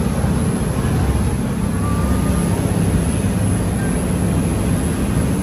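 Boat underway on open water: a steady, loud low engine drone mixed with the rush of water past the hull.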